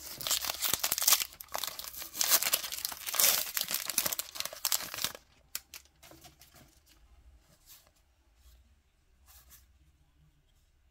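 Wrapper of a Topps Archives baseball card pack being torn open and crinkled for about five seconds, then only faint light ticks and shuffles of handling.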